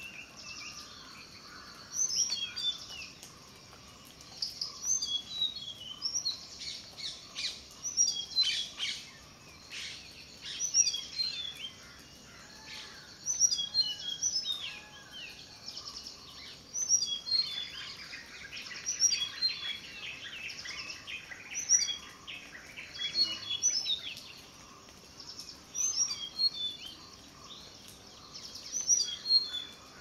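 Tickell's blue flycatcher singing a melodious song: short phrases of high notes stepping down in pitch, repeated every couple of seconds. Other bird chirping thickens around the middle.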